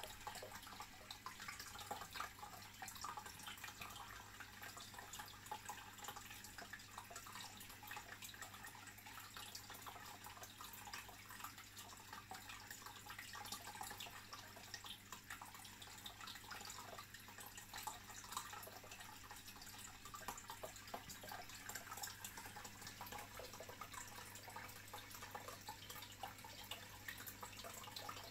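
Aquarium water circulating: a faint, continuous trickle and fizz of bubbles and moving water, dotted with tiny drip-like ticks, over a steady low hum.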